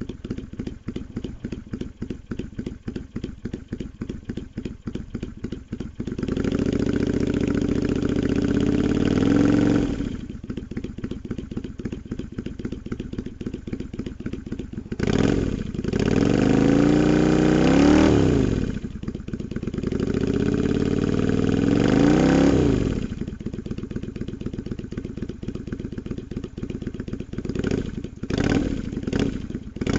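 Yamaha Drag Star 250's air-cooled V-twin running through an aftermarket Garage T&F drag-pipe muffler fitted with a Kijima long inner silencer wrapped in glass wool. It idles with an even pulse, is revved and held for a few seconds about six seconds in, rises and falls in two revs in the middle, and gets quick throttle blips near the end.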